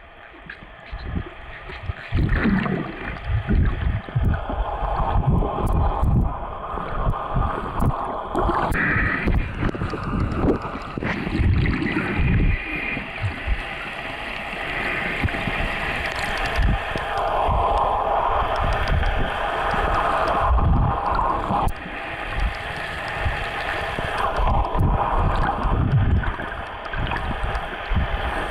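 Muffled water noise picked up by a camera held underwater while swimming: a steady rushing with irregular low thumps throughout.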